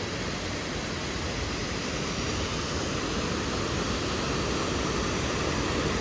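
Nooksack Falls, a waterfall heard from its overlook: a steady rush of falling water.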